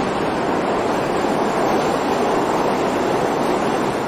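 Double-decker electric train passing close by at speed: a steady rushing of wheels on rails and moving air.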